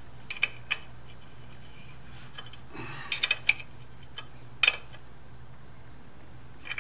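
Hand tools clinking on metal: a wrench and spanner being fitted to the timing-belt tensioner bolt of a Ducati ST4 engine, with a few scattered light clicks over a low steady hum.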